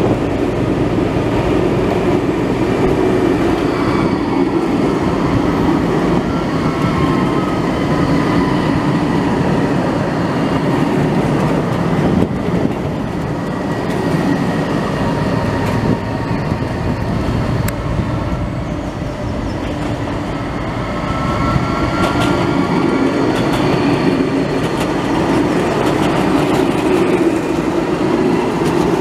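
Porto Metro Eurotram light-rail vehicle running past on street track: a steady rumble of wheels on rails, with faint rising and falling whines and a few sharp clicks.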